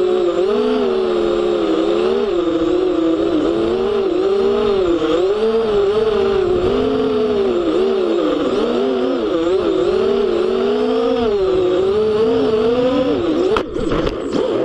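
FPV racing quadcopter's motors and propellers whining, heard close up from its onboard camera, the pitch rising and falling constantly with the throttle. About a second before the end it strikes the grass with a brief clatter of impacts and tumbles.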